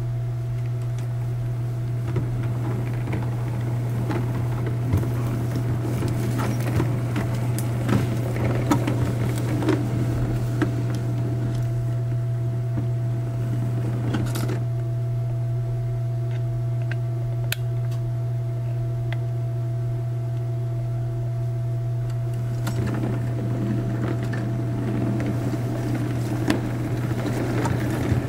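O gauge model locomotive running with a short goods train: a steady electric-motor hum under irregular clicking of the wheels over rail joints and pointwork. The clicking thins out in the middle.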